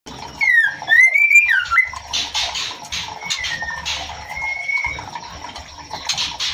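Female white-rumped shama calling: a few short whistled notes that slide down and up, with harsh rasping bursts in between.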